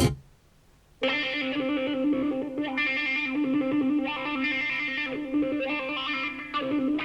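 A song ends, then after about a second of quiet an instrumental passage with electric guitar starts, played back through Bang & Olufsen Beolab 4000 active loudspeakers.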